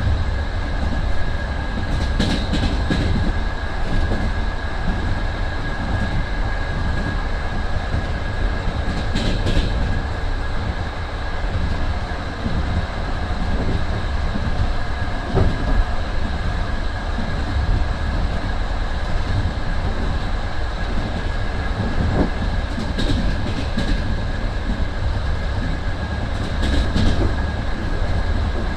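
Steady low rumble of an old compartment sleeping car on a moving passenger train, heard from inside the carriage. A few brief higher rattles come now and then, over a faint steady high tone.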